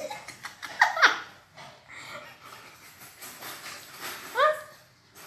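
Border collie vocalizing: two quick yips falling in pitch about a second in, then a single rising yelp near the end.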